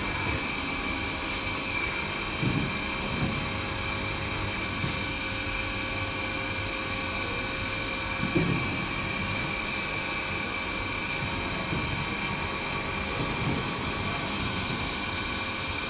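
Excavator engine running steadily with a constant high whine over it. A few short low swells come and go about two to three seconds, eight seconds and thirteen seconds in.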